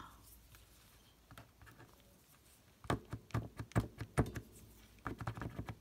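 Posca paint marker's nib tapped and dragged on a pad of sticky notes: a quick run of sharp taps starting about three seconds in, and a few more near the end. The marker is not yet primed, so its ink is not flowing.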